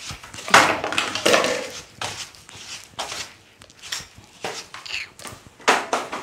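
Broom sweeping the floor in a series of short, irregular swishing strokes.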